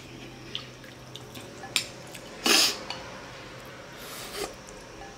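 A person eating soup makes a sharp in-drawn breath noise about two and a half seconds in and a softer one just past four seconds, with a faint click near two seconds.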